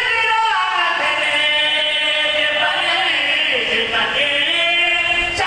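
Melodic devotional chanting in long held notes that waver slowly in pitch, starting abruptly.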